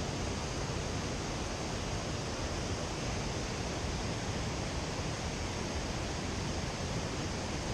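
Waterfall and river water rushing steadily, an even unbroken noise.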